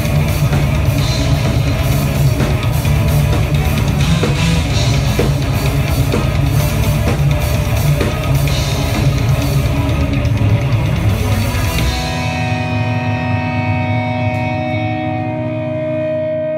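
Live heavy rock band playing loud, with distorted guitars and pounding drums. About twelve seconds in the drums stop, leaving the guitars ringing on held notes that fade out as the song ends.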